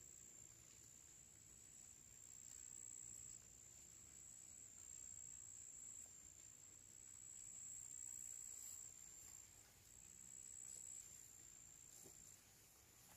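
Crickets singing: a faint, steady, high-pitched trill.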